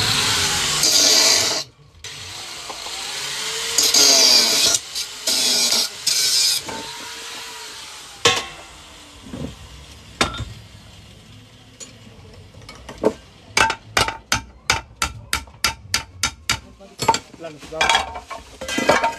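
A corded power tool run in two loud bursts, then a quick run of sharp clicks, about four a second, a little past the middle.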